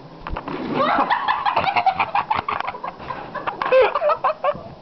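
A person shrieking and cackling in a high, squawking voice without clear words. Sharp knocks and scuffling handling noise run through it.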